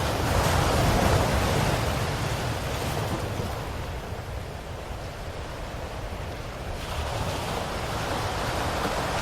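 Ocean surf: a wave swells loudest about a second in and washes back quieter, then the next wave builds near the end.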